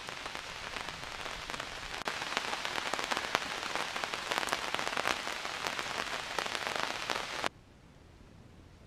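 Steady rain pattering, dense with sharp drop ticks, that cuts off abruptly about seven and a half seconds in to a faint hiss.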